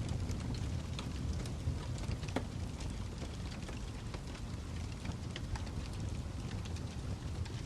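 Wood fire burning in a fireplace: a steady low rumble of flames with scattered sharp crackles and pops from the logs.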